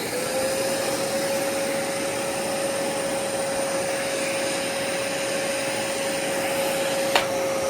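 Dyson Cinetic Big Ball canister vacuum cleaner just switched on, its motor spinning up to a steady whine within the first half second and then running steadily. A single sharp click near the end.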